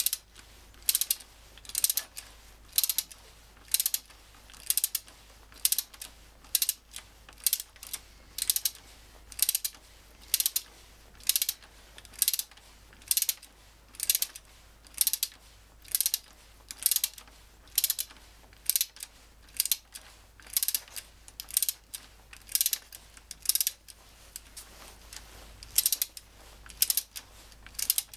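Ratchet wrench clicking in short bursts about once a second as it is swung back and forth turning a bolt on the engine's oil pump.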